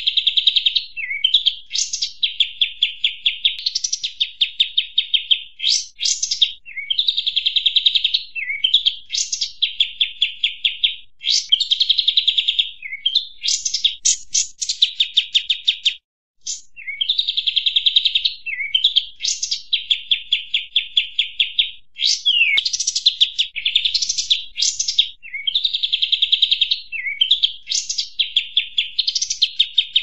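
Bird-lure recording of kapas tembak birds calling: repeated rapid high trills about a second long, each opened by sharp high notes, with short rising chirps between them. The loop cuts out for a moment about sixteen seconds in.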